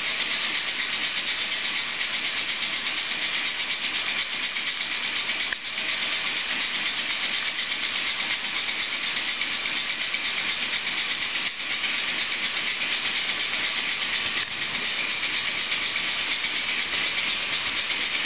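Single-cylinder reciprocating steam engine driving a DC generator, running steadily with a continuous loud hiss of steam.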